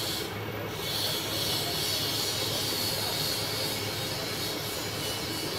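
Steady hiss with a low hum running under it: continuous workshop background noise, with no single event standing out. The hiss thins briefly about half a second in.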